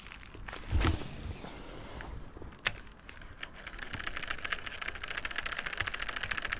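Fishing reel being cranked: a fast, even ticking that starts a little past halfway and keeps going. Before it come a dull thump about a second in and a couple of single sharp clicks.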